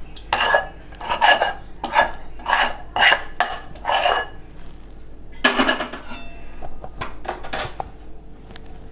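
A spatula scraping sticky date-and-nut mixture out of a metal kadhai. There are about seven quick scrapes, roughly two a second, then a louder scrape about five and a half seconds in and a few lighter ones near the end.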